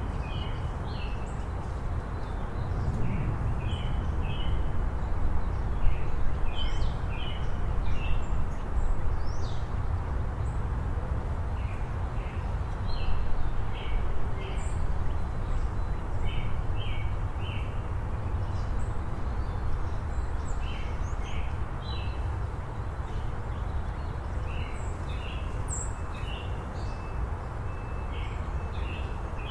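Backyard birds chirping: many short, irregular chirps and calls throughout, over a steady low background rumble.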